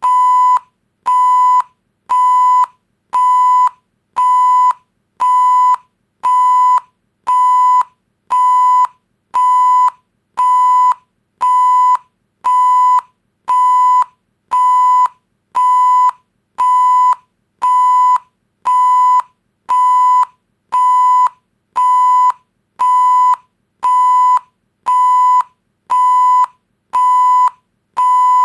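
Electronic beep sound effect: a steady 1 kHz tone repeating evenly, about three short beeps every two seconds with silent gaps between, like a censor bleep.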